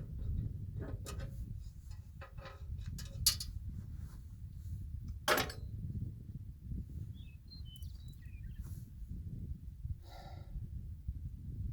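A few sharp knocks and clicks, the two loudest about three and five seconds in, over a low steady rumble. A few faint high chirps follow near the end.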